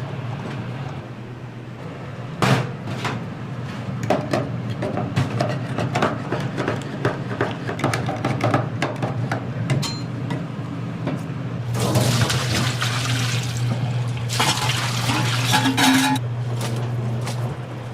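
Commercial kitchen work: scattered clicks and knocks of utensils and dishes over a steady low hum, with two longer stretches of hissing, rushing noise, like running water, in the second half.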